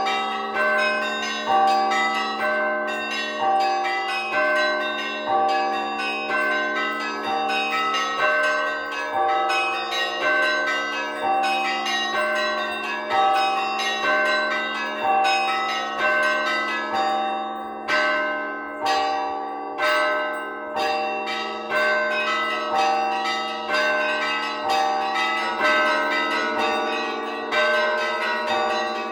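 Russian Orthodox festal ringing of church bells: several bells of different pitch struck in a steady, repeating pattern over the ringing hum of a larger low bell. The small high bells briefly thin out about two-thirds of the way through.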